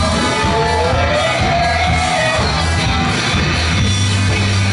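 Loud live rock band playing electric guitar, bass guitar and drums, with a male singer's gliding, wailing vocal over roughly the first two seconds before the instruments carry on alone.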